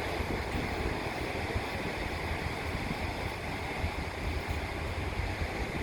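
Sea surf washing in steadily, with gusty wind rumbling on the microphone.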